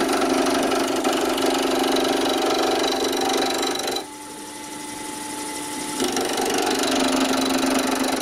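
A turning tool cutting a padauk hammer-handle blank spun off-centre on a wood lathe: a loud, rapid rattling cut, because the tool catches only one side of the shaft each turn. About four seconds in the cut stops for two seconds, leaving the lathe's quieter hum, then picks up again.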